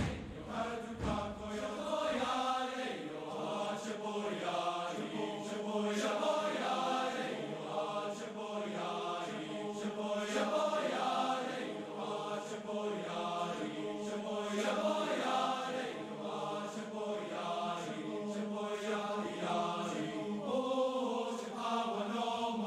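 Large TTBB men's chorus of teenage voices singing in many parts, with short repeated syllables moving above a steady low note held underneath.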